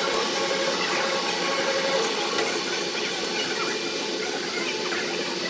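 Machine tool running steadily while a hole is drilled in a metal part: a constant machine hum with several steady tones under an even hiss.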